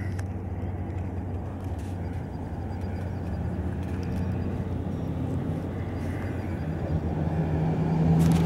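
A car engine idling steadily, a continuous low hum that swells slightly near the end.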